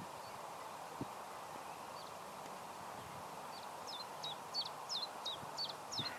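A small bird singing a quick run of about nine high, hooked chirps in the second half, over a faint steady hiss.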